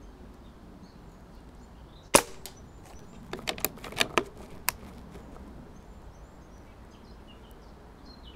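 A single shot from a CO2-powered Hämmerli 850 AirMagnum .177 air rifle, a sharp crack about two seconds in, followed over the next two and a half seconds by a quick run of quieter metallic clicks as the bolt is worked to chamber the next pellet.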